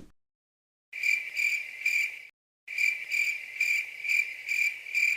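Crickets-chirping sound effect: a high, even chirp pulsing about twice a second, starting about a second in with a brief break soon after.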